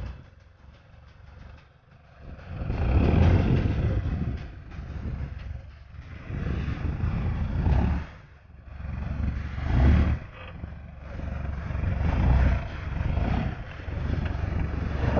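Toyota Hilux Surf engine revving hard in repeated surges as the 4x4 struggles up a steep, muddy slope. It is quieter for the first two seconds, then swells and falls back about four times.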